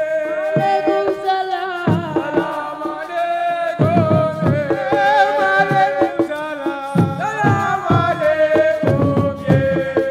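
Music with drums beating under a long, wavering melody line that bends in pitch.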